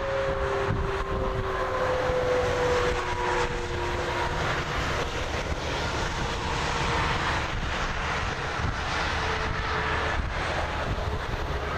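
Traffic passing on the interstate: a steady roar of tyres and engines, with a whine that falls slowly in pitch over the first few seconds as a vehicle goes by.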